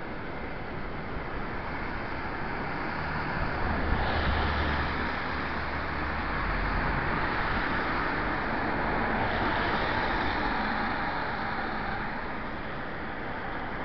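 Swollen floodwater rushing and churning in a steady hiss-like noise, swelling louder twice. A low rumble joins it a few seconds in.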